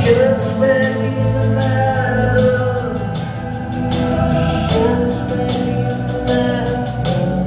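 Live band music: a man singing over guitar, keyboards and drums, with steady drum and cymbal strikes.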